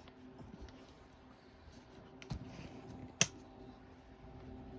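Light clicks and taps from handling small parts, with one sharp click about three seconds in, over a faint steady hum.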